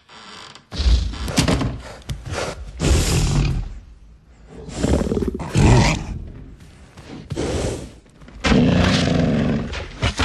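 A run of about six separate film sound effects, one after another with short gaps, each lasting up to a second and a half; some are pitched like animal roars or growls, others are heavy thuds.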